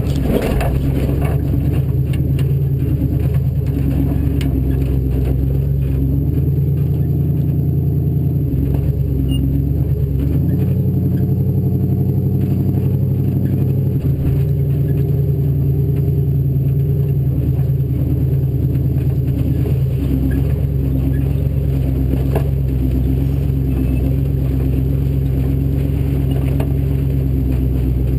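Off-road race Bronco's engine running hard, its engine speed stepping up and down several times, with frequent knocks and clatter from the vehicle over rough ground.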